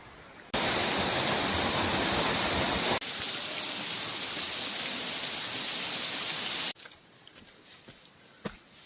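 A waterfall's rushing water, loud and steady, cutting in suddenly about half a second in, dropping slightly a few seconds later, and cutting off suddenly near the end, leaving quieter ambience with a few faint clicks.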